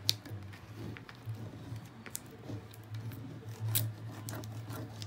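Plastic transfer carrier sheet crinkling and crackling as a burnishing stick rubs the transfer down onto the dresser front, in scattered small crunchy clicks, with a sharper click just after the start and another near four seconds. A low steady hum runs underneath.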